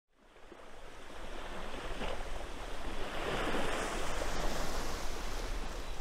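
Ocean waves washing, a steady rushing noise that fades in over the first couple of seconds and swells a little midway.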